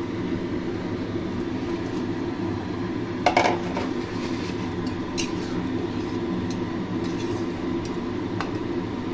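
Metal spatula knocking and scraping in a kadai as fried fish pieces go into the simmering curry gravy, with a louder clatter about three seconds in and a few light clinks later, over a steady low hum.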